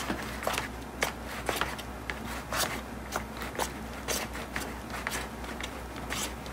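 A utensil stirring a foamy glue-and-shaving-cream slime mixture in a plastic tub: irregular soft scrapes and clicks against the tub, about two a second.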